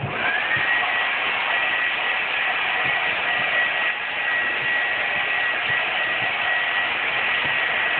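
Handheld hair dryer switched on and blowing steadily, a rush of air with a high motor whine that rises into place just after the start and then holds. It is heating a freshly sprayed coat of tint on a taillight to set the layer.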